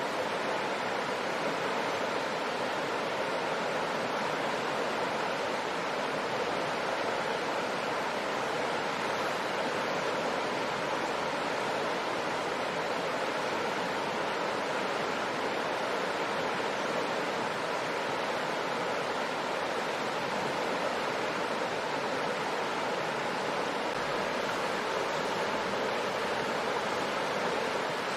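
Shallow river water running steadily over rocks, an even rushing noise.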